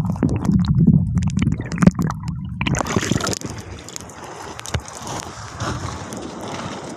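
Muffled sea water heard from under the surface: a dull, low rumbling and sloshing with no highs. About three seconds in it comes up into the open air and turns into a quieter, steadier rush of sea water beside the boat, with wind on the microphone.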